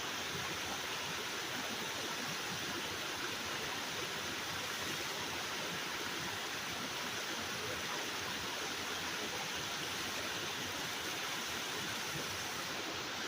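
Sable Falls waterfall: a steady, even rush of falling water.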